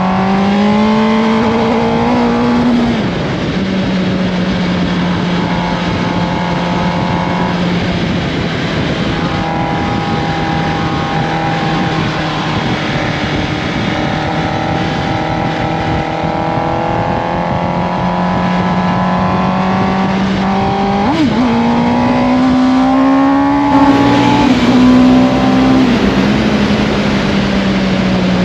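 Motorcycle engine running under way. Its pitch rises at the start, drops at a gear change about three seconds in, holds steady for a long stretch, then climbs again after about twenty seconds and drops near the end.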